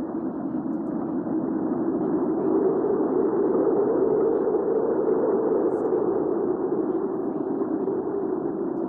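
Hurricane-force wind blowing as a steady low rush. It swells louder and a little higher in pitch midway, then eases back.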